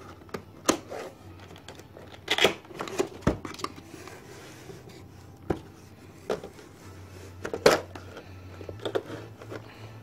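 A cardboard keyboard box being opened by hand: irregular taps, scrapes and rustles of cardboard and plastic packaging.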